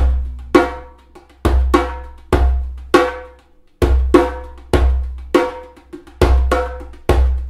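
Djembe played with bare hands in a drum and bass rhythm: deep bass strokes alternating with higher, ringing tone strokes in an even, repeating pattern.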